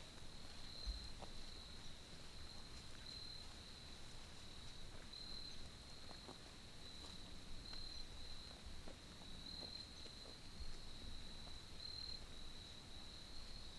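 Faint steady insect chorus, a continuous high trill that swells and fades in strength, over a light low rumble.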